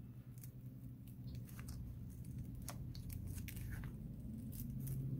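Plastic opening pick sliding under the cracked back glass of a Samsung Galaxy S9 Plus, tearing through the adhesive: faint scattered crackles and ticks, growing more frequent toward the end, over a low steady hum.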